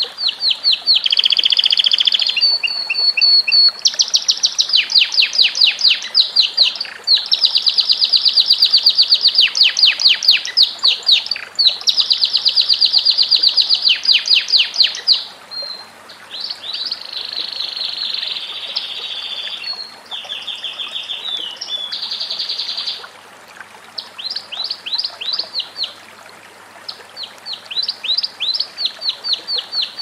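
Domestic canary singing a long run of rapid trills. Each phrase is a fast series of repeated notes, and the song moves from one trill type to the next with brief pauses between phrases.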